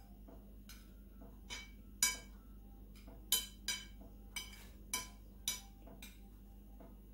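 Metal cutlery clinking against a ceramic plate of rice while eating: about seven separate, irregular clinks, each with a short ring.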